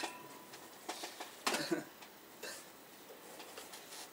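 Faint sounds of a person signing without speaking: a sharp click at the start, a short breathy puff about a second and a half in, and a few soft ticks from hands and lips.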